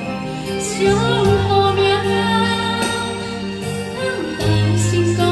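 A woman singing a slow ballad into a microphone over a karaoke backing track, with steady held bass notes under the vocal melody, amplified through the hall's PA.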